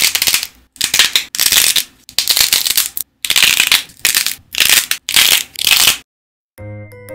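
Hardened modelling clay with a glossy nail-polish coating being bent and squeezed by hand, cracking apart in about eight loud crackling, crunching bursts over six seconds. After a brief silence, a piano-and-chime music cue starts near the end.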